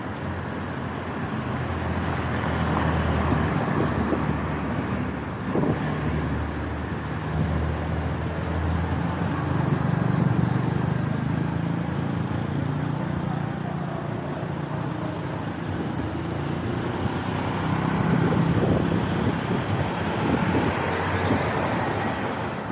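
Road traffic passing close by: car engines and tyres making a steady wash that swells as vehicles go past, loudest about ten seconds in and again near eighteen seconds.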